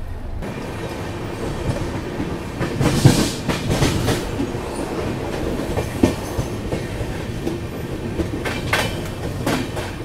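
Double-decker express coaches rolling into a station: a steady rumble of wheels on rail, with irregular clacks and knocks over the rail joints, the loudest about three seconds in.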